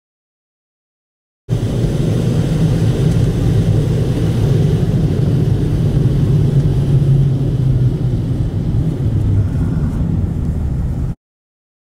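Steady low rumble of a car driving along a snowy road, heard from inside the cabin. It cuts in abruptly about a second and a half in and cuts off just as abruptly near the end.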